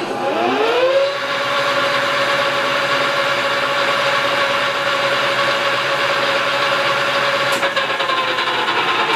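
Lathe spinning up the heavy rebuilt wood chipper rotating unit, its whine rising over about a second. It runs steadily at about 450 RPM for a true-running check, then begins to wind down near the end.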